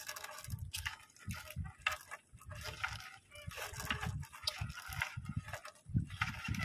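Water sloshing and splashing in irregular bursts, with dull low thuds, as a fishing net is hauled by hand out of the sea into a small boat.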